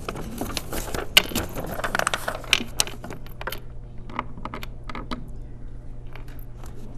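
Handling noise picked up by a lectern microphone: clicks, knocks and rustling, busiest over the first three and a half seconds with one sharp knock about a second in, then a few scattered clicks as the microphone is adjusted by hand.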